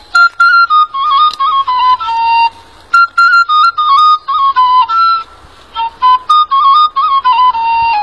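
Background music: a solo flute-like wind instrument playing a quick, ornamented melody in short phrases, with brief pauses about three and five and a half seconds in.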